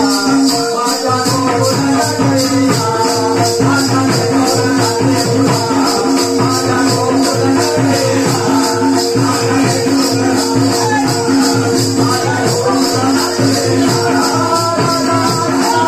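Live Marathi song: a man singing through a microphone and loudspeaker, with drum and a quick, steady beat of high, sharp strokes over a held drone note.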